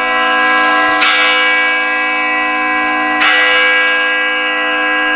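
A bell ringing the start of worship: struck about a second in and again about three seconds in, each stroke ringing on with many steady overtones.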